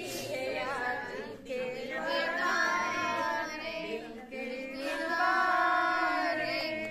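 A woman singing a song unaccompanied, holding long notes.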